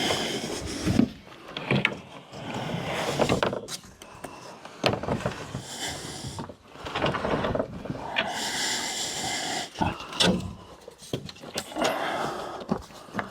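Wooden outhouse parts being handled and fitted, with irregular knocks and scraping of wood on wood.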